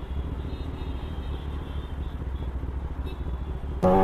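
Low, steady rumble of an idling motorcycle and street traffic. Near the end the Kawasaki ZX-10R's inline-four engine suddenly comes in loud, revving up with a steadily rising pitch as the bike accelerates.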